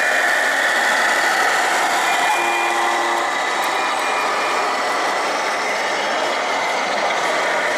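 Radio-controlled 1/14 scale model truck pulling a long trailer past, a steady mechanical running noise without pause.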